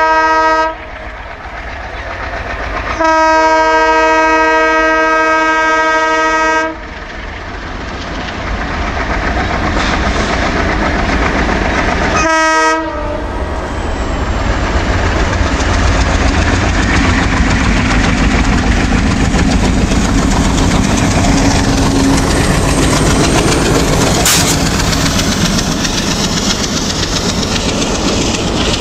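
An Indian Railways ALCo diesel locomotive blows its multi-tone horn: a blast that ends right away, a long blast of a few seconds, and a short one about halfway through. Then the chugging of the ALCo engine and the clickety-clack of the wheels over the rail joints grow louder as the train comes by, with one sharp click near the end.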